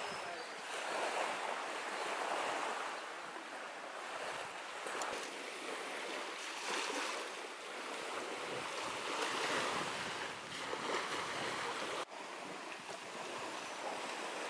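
Small waves washing onto a sandy shore, the surf noise swelling and easing every few seconds, with wind buffeting the microphone. There is a brief break in the sound about twelve seconds in.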